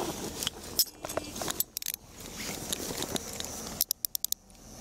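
Metal handcuffs clinking and ratcheting shut, with a quick run of sharp clicks near the end, over clothing rustling against the body camera's microphone.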